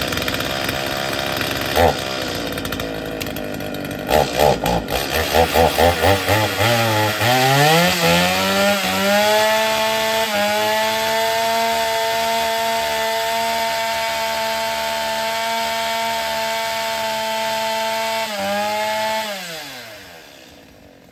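Stihl 021 two-stroke chainsaw engine running on new fuel lines. It runs unevenly and stutters for a few seconds, then revs up to full throttle and holds a steady high pitch for about nine seconds, before winding down and cutting off near the end.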